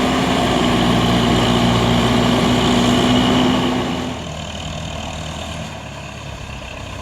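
Diesel engine of a Timberjack 230 forwarder running hard with a steady drone. About four seconds in it drops back to a quieter, lower running level.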